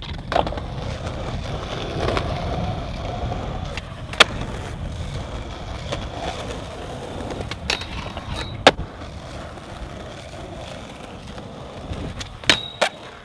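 Skateboard wheels rolling on smooth concrete, with several sharp clacks of the board. Near the end come two quick clacks with a brief metallic ring as the board meets a low steel rail.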